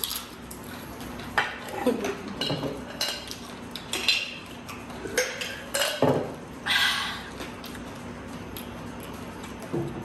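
Plates and cutlery clinking and clattering as food is eaten: a string of short clinks and knocks, most of them in the first seven seconds.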